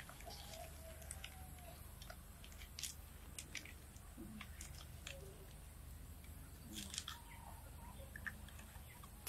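Faint handling sounds of pandan leaves being stuffed into the mouths of bamboo tubes filled with sticky rice: scattered small clicks, crackles and rustles.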